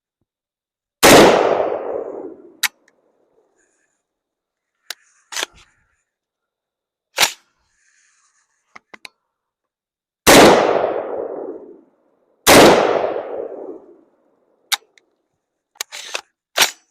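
Three rifle shots from a Smith & Wesson M&P 10 in .308, each with a long echoing tail, spaced unevenly about a second in, ten seconds in and two seconds after that, with fainter sharp metallic clicks between them. The rifle is still giving light primer strikes despite a new extra-heavy hammer spring.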